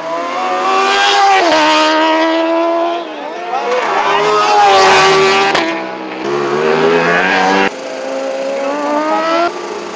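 Superstock superbike engines running at high revs, the pitch climbing and then dropping several times as the bikes accelerate and shift.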